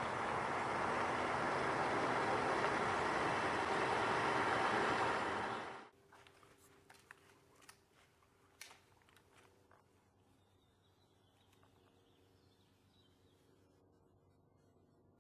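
A steady, loud rushing noise that cuts off abruptly about six seconds in, followed by a quiet stretch with a few faint clicks.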